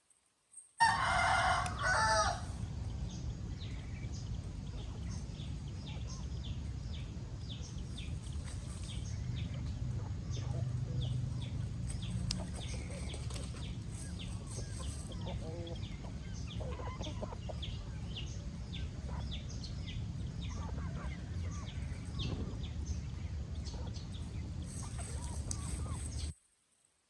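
A rooster crows once near the start, then many short high peeps and chirps of chickens over a steady low rumble. The sound cuts off suddenly near the end.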